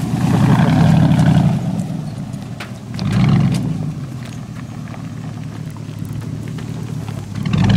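Chevy Silverado 1500 pickup's V8 revving hard while the rear wheel spins in loose dirt. It is loud for the first second and a half, revs up again about three seconds in, then settles to a lower, steadier note as the truck pulls away.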